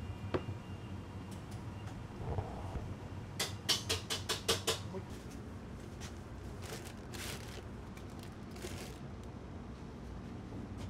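Small handling noises: a quick run of about eight sharp clicks and taps, then short soft rustles of paper dorayaki packets being handled and stood upright in a wooden box, over a steady low hum.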